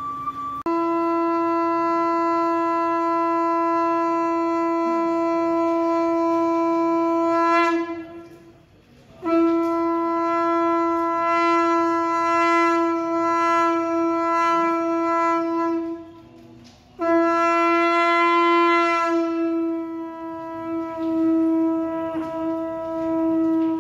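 Conch shell (shankha) blown in three long blasts of about seven seconds each, every blast one steady held note with brief pauses for breath between them; the last blast wavers slightly in pitch.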